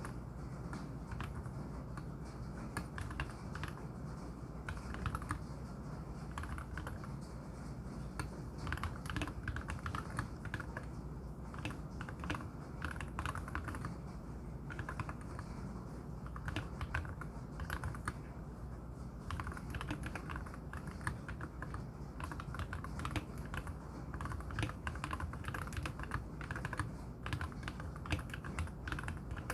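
Continuous typing on a MelGeek Z70 Ultra mechanical keyboard with lubed KTT Wine linear switches and tall MA-profile spherical keycaps: fast, irregular keystrokes with a deep, hollow, wood-block-like clack, with brief pauses between bursts.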